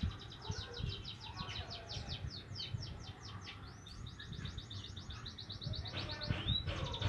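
Young white-headed munias (emprit kaji) practising their twittering song: a continuous chatter of short, quick, high down-slurred notes, about ten a second, with one longer rising note a little after six seconds.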